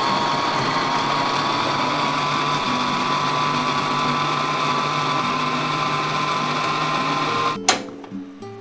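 Electric blender running, grinding shallots, garlic and chillies coarsely without added water. The motor whine settles to a steady pitch after spinning up, then cuts off suddenly near the end.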